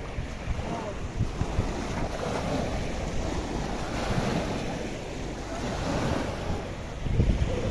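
Small sea waves lapping and washing up onto a sandy shore in swells, with wind buffeting the microphone, strongest in a gust near the end.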